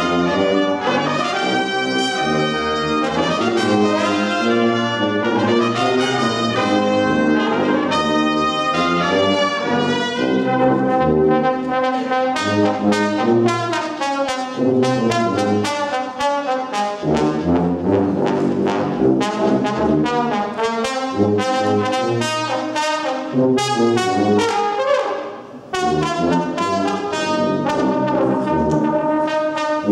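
Small brass ensemble of two sousaphones, two trombones and two trumpets playing. From about ten seconds in the notes turn short and clipped, with the sousaphones carrying the bass under a trombone while the trumpets rest, and there is a brief break about four seconds before the end.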